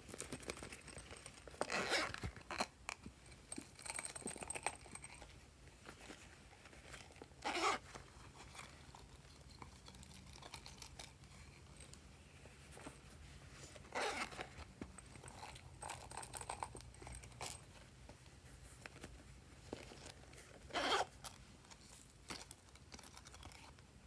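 Handling sounds from silicone pop-it toys and sequin confetti: a few short crinkling, rustling scrapes several seconds apart.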